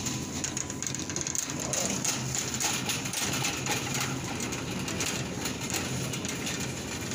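Shopping cart rolling across a supermarket floor: a steady rumble of the wheels with a continuous light rattle of the wire basket.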